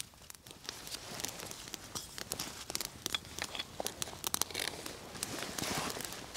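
Small birch-bark and twig fire crackling and popping just after lighting, with dry twigs and leaves rustling as it is fed. Near the end, a louder rustle of dry leaves as the person gets up beside it.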